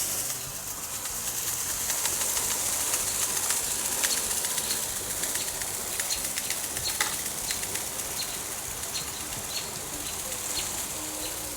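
Steady rain falling outdoors: an even high hiss with scattered small ticks of drops.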